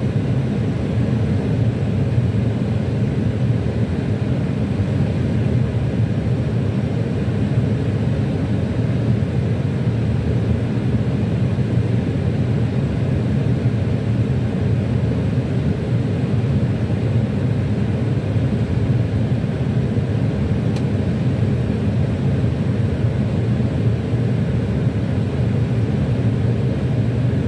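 Steady low rumble of airflow and engine noise on the flight deck of an Airbus A321 on final approach.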